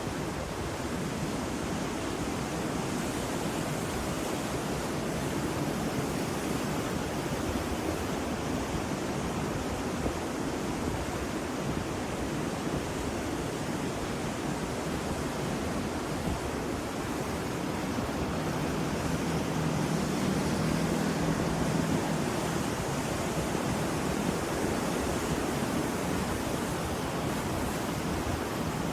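Ocean waves breaking and washing on the shore in a steady rushing wash of surf, swelling slightly about two-thirds of the way through.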